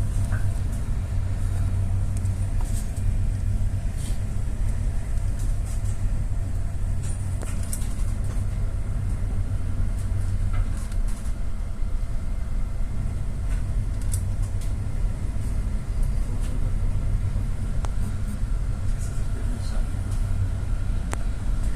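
Steady low engine drone with faint steady tones above it and a few faint clicks.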